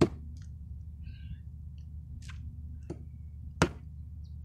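Sharp chopping blows into a fallen wooden log: one loud strike at the start, then two more close together about three seconds in. A steady low rumble lies under them.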